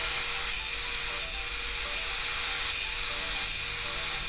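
Electric angle grinder running with its disc held against the cut end of a steel bar, grinding the edge smooth: a steady high whine under a harsh grinding hiss that swells and eases about once a second.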